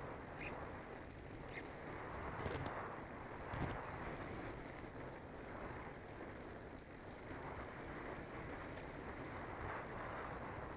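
Steady rushing wind noise over the onboard camera of a Bixler II Sport RC plane in flight, with a few brief clicks in the first few seconds and another near the end.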